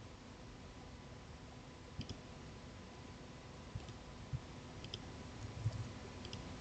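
Faint, scattered clicks of a computer mouse and a few keyboard keystrokes as a word is typed into a web form, over a low steady hiss.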